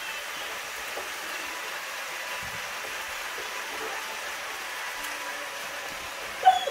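Bok choy sizzling in a hot wok on a gas burner, a steady frying hiss. A short whine cuts in near the end.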